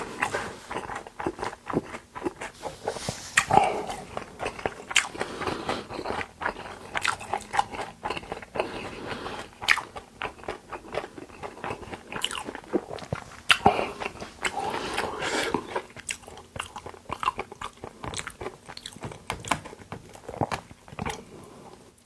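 Close-miked chewing and biting of raw beef dishes (yukhoe and beef sashimi), a steady run of quick wet mouth clicks and smacks.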